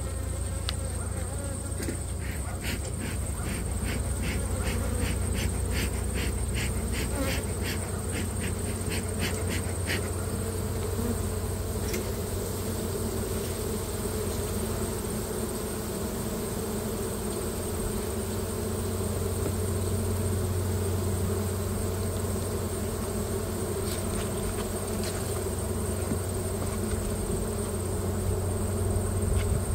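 Honeybee colony humming steadily from an open hive, with bees covering the frame top bars. A run of faint quick ticks, about two or three a second, sounds during the first third.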